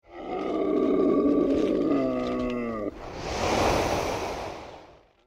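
A dragon roar sound effect: a growling roar for about three seconds that drops in pitch and cuts off, followed by a rushing whoosh that swells and then fades out.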